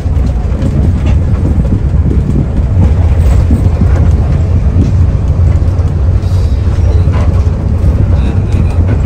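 Mercedes-Benz OH 1521 bus's diesel engine running under way, a steady low rumble heard on board, with many small knocks and rattles from the bus body.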